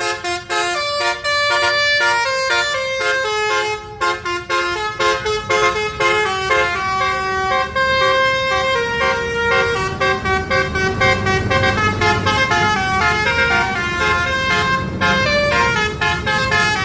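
Bus 'telolet' basuri horn playing a fast melody of changing notes, several horn tones sounding together, over the low rumble of an engine.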